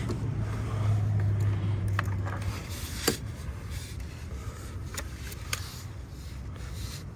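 A few sharp clicks and knocks of hand tools and ignition-coil parts being handled on a 2UZ-FE V8, over a low steady hum that fades out after about two and a half seconds.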